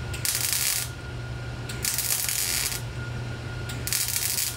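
Welder laying short plug welds to fill drilled holes in thin body sheet metal backed by a copper plate: three short bursts of welding, each under a second, with pauses between them. A steady low hum runs underneath.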